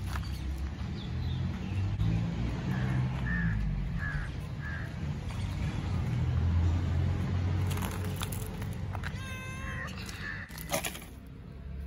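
A domestic cat meows once, about nine and a half seconds in, over a steady low rumble. A few short high chirps come earlier.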